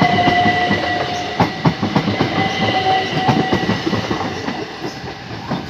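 Class 375 Electrostar electric multiple unit passing close by, its wheels clicking over the rail joints. A steady high whine sounds over the clicks in the first half, and the train fades toward the end.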